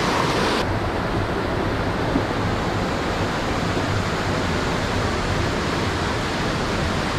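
Rushing water of a rocky mountain stream cascading over boulders, a steady rush. About half a second in it turns a little duller.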